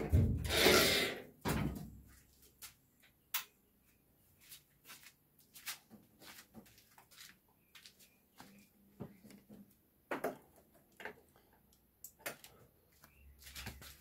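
Handling noise: a loud scraping rustle in the first second and a half, then scattered light clicks and knocks. A low steady hum starts near the end.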